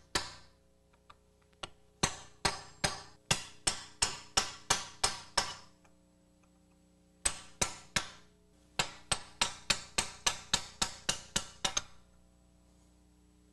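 Hammer blows on a beveled chisel, driving the steel sleeve of an upper control arm bushing out of the arm a little at a time. The sharp metallic strikes come about two to three a second in two runs, with a short pause in between.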